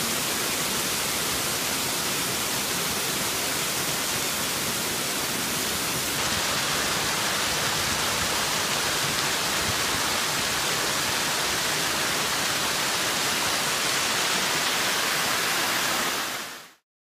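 Water from a small waterfall pouring and splashing over a limestone ledge, swollen after a flood: a steady rushing that turns a little brighter about six seconds in and fades out near the end.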